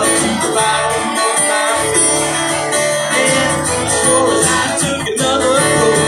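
Two acoustic guitars strumming together in a country/bluegrass style, with a man singing the melody over them.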